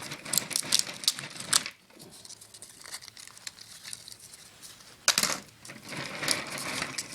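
Copper winding wire from a compressor motor being handled: light metallic clinking and rustling, in two spells with a quieter gap in the middle, sharpest clicks about five seconds in.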